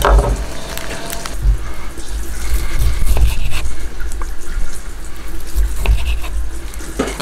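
Knife slicing raw meat on a wooden cutting board, with a few light taps of the blade on the board, over an uneven low rumble.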